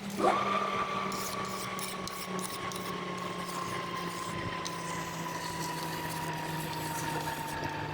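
Metal lathe running: a motor whine that climbs quickly just after the start, then slowly sinks in pitch, over a steady low hum with faint scattered ticks.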